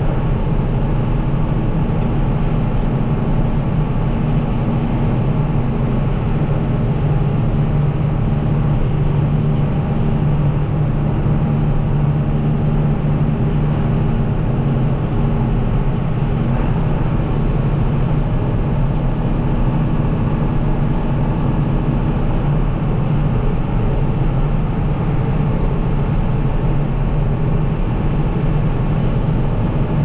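Diesel engine of a farm harvest machine, combine or grain-cart tractor, running steadily under load, with a constant low hum.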